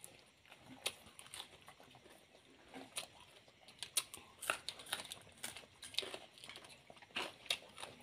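Close-up eating sounds: chewing and biting raw salad greens, heard as irregular short crunches and crinkles.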